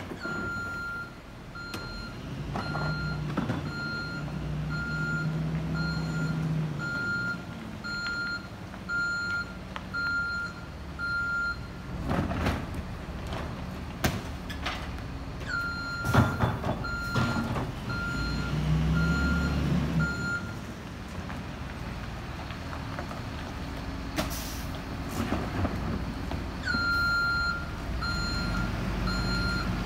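Reverse alarm of a McNeilus rear-load garbage truck on a Freightliner M2 chassis beeping about once a second as the truck backs up, in three stretches with breaks between them. The diesel engine runs underneath and swells at times, and a few sharp knocks come through, the loudest about halfway through.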